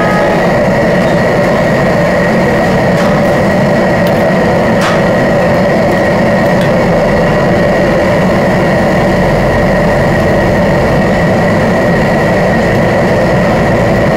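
Steady, loud rushing noise of a gas burner running under a large pan of crayfish boiling hard, with a faint steady whine and a few light clicks.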